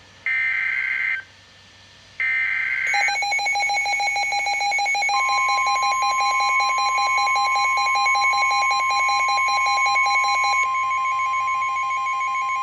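NOAA Weather Radio emergency alert: two short screeching bursts of SAME digital header data, then the steady 1050 Hz Warning Alarm Tone for a tornado warning coming on about five seconds in and holding. Under it, from about three seconds in, runs a rapidly pulsing alarm beep that eases after about ten seconds.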